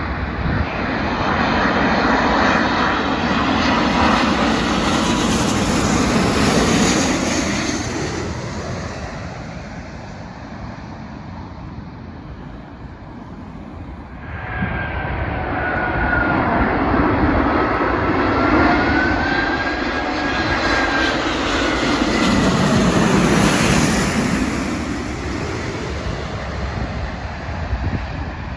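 Jet airliners on final approach passing low. The first is loudest in the opening seconds and fades away by about ten seconds in. The second, a four-engine Airbus A380, builds from about halfway with a wavering engine whine and is loudest a few seconds before the end. Wind rumbles on the microphone.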